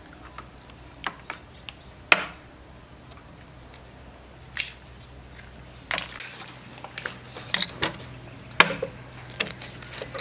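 Eggs being tapped and cracked on the rim of a steel mixing bowl: scattered sharp taps and shell cracks, a few of them loud.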